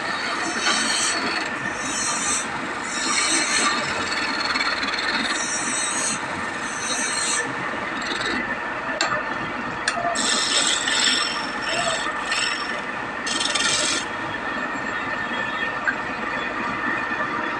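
Tool scraping and rasping on wood in repeated strokes, each stroke about half a second to a second long, with brief pauses between them.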